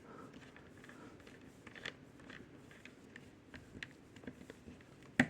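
Faint small clicks and rustles of small screws and a screwdriver being handled against a laptop's plastic bottom cover, with one sharper click near the end.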